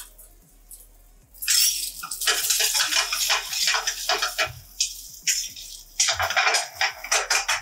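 Boiled chicken cubes sizzling in hot olive oil in a stainless steel frying pan over a gas burner as they are sautéed. The sizzle starts about a second and a half in and rises and falls as the pan is worked.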